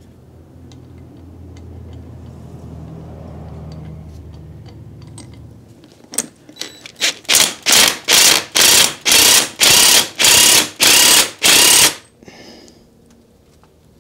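DeWalt cordless impact wrench running the pitman arm nut down onto a power steering gearbox's output shaft with a low steady hum, then hammering in about a dozen short trigger bursts, roughly two a second, as the nut tightens.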